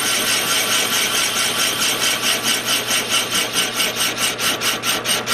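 Metal lathe taking a facing cut on a small locomotive wheel, a steady cutting and rubbing noise from the tool and from a brush held on the spinning wheel. The noise pulses evenly about four times a second, more distinctly from about two seconds in.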